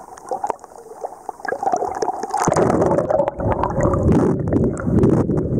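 Water gurgling and sloshing around a camera held at the surface of a spring run, growing to a much louder, low churning rumble about two and a half seconds in.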